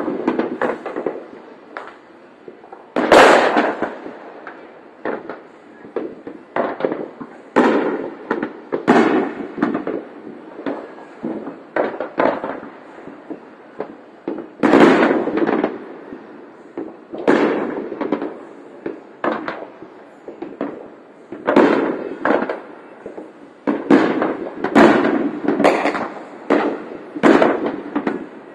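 Aerial fireworks shells bursting overhead in a steady barrage of bangs at irregular intervals, each trailing off in a fading echo. The loudest bursts come about three seconds in and again about halfway.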